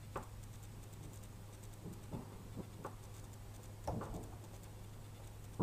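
A few faint, scattered clicks and taps from handling a soldering iron held to the solder on a small RC helicopter's circuit board, over a steady low hum.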